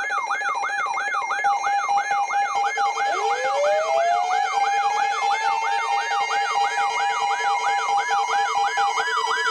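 Electronic siren sounding a fast yelp, about two and a half sweeps a second. About three seconds in, a second tone starts low and winds up slowly into a steady wail under the yelp.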